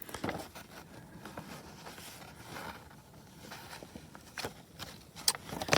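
Faint rustling and scattered light clicks of handling as the heater's paper instruction sheet is unfolded and looked over.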